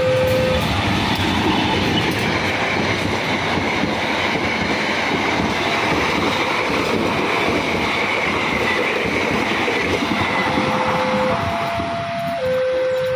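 A train passing over the level crossing at speed, its wheels rumbling and rattling on the rails, with a faint high whine through the middle. The crossing's electronic warning alarm sounds right at the start and comes back about ten seconds in, alternating between two pitches.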